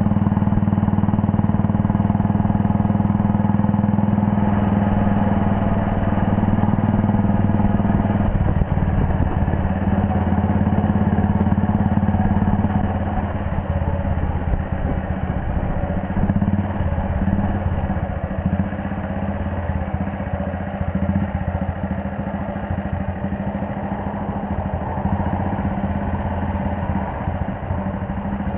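1939 Red Panther Model 40's single-cylinder engine running steadily under way. About halfway through it eases off and settles to a lower, rougher note as the bike slows and idles at a junction.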